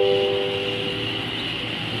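A descending four-note electronic chime from a Chichibu Railway 7000 series train, its notes held and fading out, over a steady high-pitched tone, sounding as the doors are about to close.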